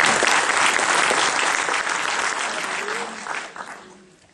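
Audience applauding, the clapping thinning out and fading away over the last second or so.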